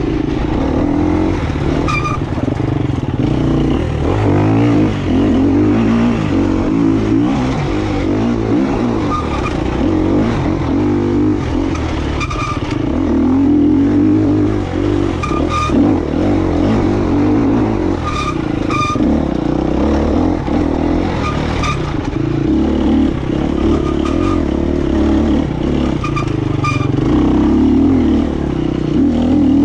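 KTM EXC 250F's single-cylinder four-stroke engine running under constantly changing throttle, its pitch rising and falling, with a few short clattering knocks.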